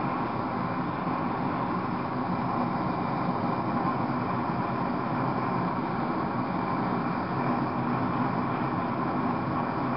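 A MAPP gas blow torch with a TS-8000 tip burning steadily, its flame held on a borax-coated ceramic melting dish to melt the borax glaze fully.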